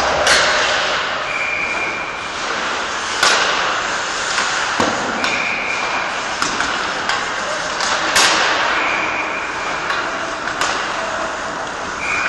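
Ice hockey practice in an echoing rink: sharp cracks of sticks striking pucks and pucks hitting the boards, around ten of them at irregular intervals, over the steady scrape of skates on the ice. A few short high-pitched squeals come and go.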